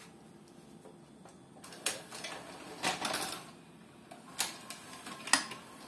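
Front-loading cassette carriage of a Shivaki SV-R7 VHS video recorder drawing in a VHS cassette and lowering it onto the tape deck: a loading motor running with a string of mechanical clicks and clacks, the sharpest about four and a half and five and a half seconds in.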